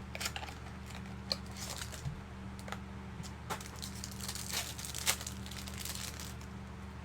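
Trading card mini box and its wrapper being torn open and handled: irregular crinkling and tearing crackles, over a steady low hum.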